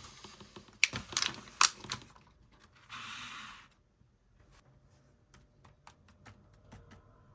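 Light clicks and taps from fingers handling a Hello Kitty surprise egg: several sharp clicks at first, a brief rustle about three seconds in, then a run of faint, light taps.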